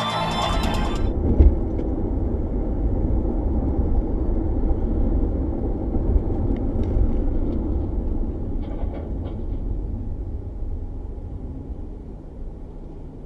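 Music cuts off about a second in, giving way to the steady low rumble of a moving vehicle: road and engine noise heard from inside the car. There is a single sharp thump about a second and a half in, and the rumble grows quieter near the end.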